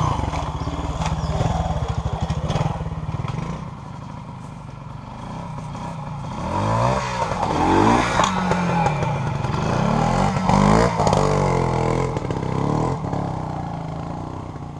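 Classic trials motorcycle engines worked at low speed over a log obstacle, the throttle blipped so the engine note rises and falls sharply. It is loudest about 8 s in and again around 10 to 11 s, as a bike passes close by.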